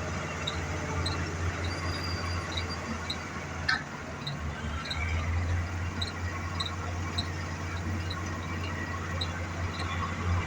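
Excavator diesel engines running steadily, with short high squeaks repeating about twice a second and a single knock about four seconds in.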